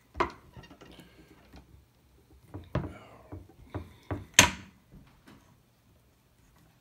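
Wooden rolling pin knocking and rolling on a wooden cutting board: a sharp clunk just after the start, then a cluster of knocks around three to four and a half seconds in, the last the loudest.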